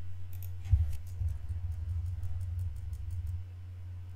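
Light clicks of a computer keyboard and mouse while text is cleared in a field, densest in the first second and then thinning out, over a steady low electrical hum.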